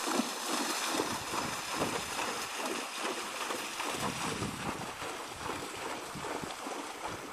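A horse's hooves splashing through shallow floodwater in quick, irregular slaps and sprays, growing gradually fainter as it moves away.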